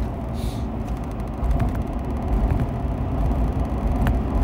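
Steady low rumble of a car, heard from inside its cabin, with a couple of light clicks.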